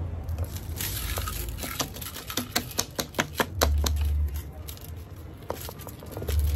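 A metal spoon tapping and scraping against a plastic funnel as powdered fertilizer is knocked through it into a plastic PET bottle, making an irregular run of quick light clicks and rattles.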